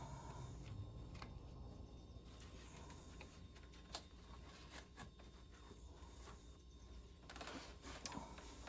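Faint handling noises of a serpentine belt being worked around engine pulleys: scattered light clicks, one sharper about halfway, and a short rustle near the end, over a low steady hum.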